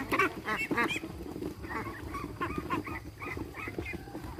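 A flock of domestic ducks quacking, many short honking calls overlapping in quick succession, busiest in the first second and again through the middle.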